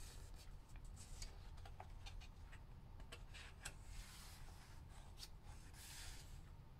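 Faint handling noise of a picture book: a few light clicks and taps, then the soft rustle of a paper page being turned about four seconds in.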